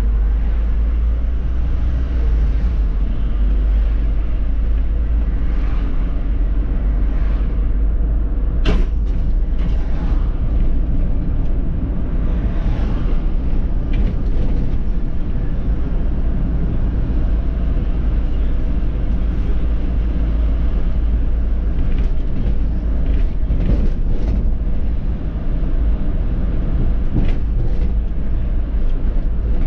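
Solaris Urbino 18 articulated bus on the move, heard from inside: a steady low engine and road rumble with a faint steady whine, and a few sharp rattles or knocks from the body along the way.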